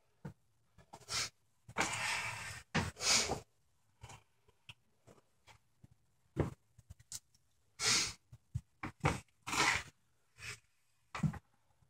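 Burmese python hissing in several breathy bursts, each under about a second, with a few short clicks and knocks in between.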